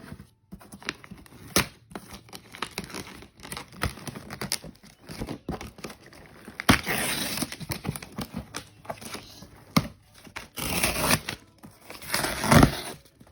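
Packaging being crinkled and torn by hand, with scattered clicks and knocks, and louder rustling stretches about halfway through and near the end.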